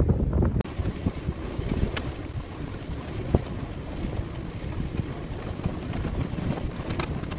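Wind and water noise aboard a sailboat under way, with a few sharp clicks and knocks as a sheet is handled at a cockpit winch while the headsail is let out.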